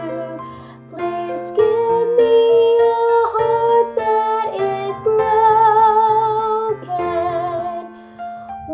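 A female soprano sings a choir part in long held notes with vibrato, over a keyboard accompaniment.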